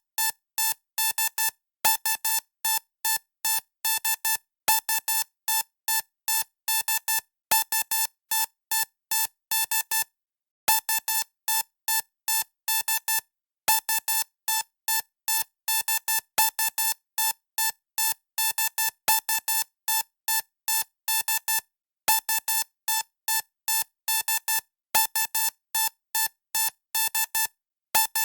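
Electronic beep tone keying out the Morse code distress signal SOS, three short beeps, three long beeps, three short beeps, repeated over and over. The beeps are one steady, buzzy pitch, evenly spaced, with a slightly longer pause between repeats.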